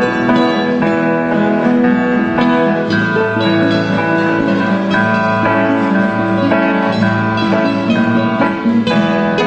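An ensemble of acoustic guitars playing a tune together, with plucked melody notes over strummed and picked chords.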